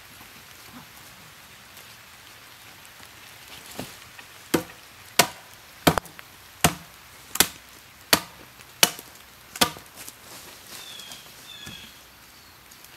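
Hatchet chopping wood: eight sharp, evenly spaced strikes about two-thirds of a second apart, starting about four and a half seconds in.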